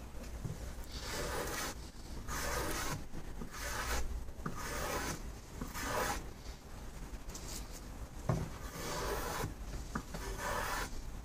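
Hand plane shaving the edge of a softwood board in repeated strokes, roughly one a second, each a short dry hiss of the blade cutting a curl.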